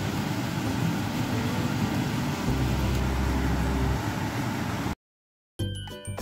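Steady rushing background noise, with a deeper rumble for a second or so midway, cutting off abruptly about five seconds in. After a half-second of silence, upbeat Latin-style music with percussion starts.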